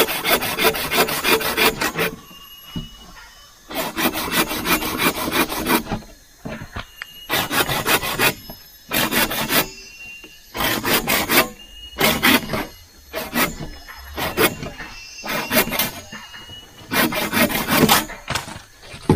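Hand saw cutting through a freshly felled green wooden pole, in bursts of quick back-and-forth strokes with short pauses between them.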